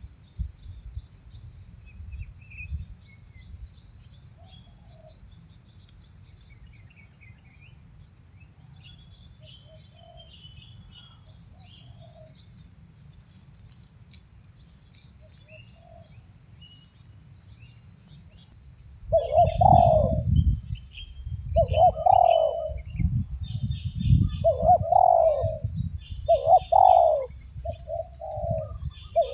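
Spotted doves cooing: faint short coos through the first part, then from about two-thirds in a loud, close dove cooing in repeated phrases about every two seconds. A steady high insect drone runs underneath.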